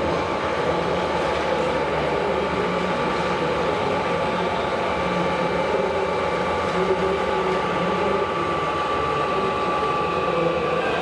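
Steady mechanical whine from the hydraulics of a 1:8 scale RC tipping trailer as its bed is raised, over the steady din of a busy exhibition hall. The whine stops shortly before the end.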